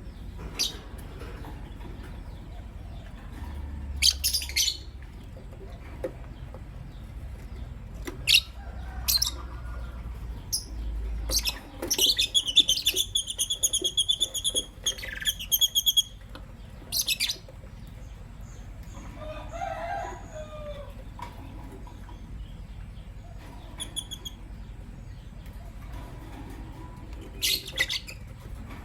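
Lovebirds, a green masked lovebird and a pastel white lovebird, chirping: scattered short, sharp high calls, with a quick run of repeated shrill calls around the middle.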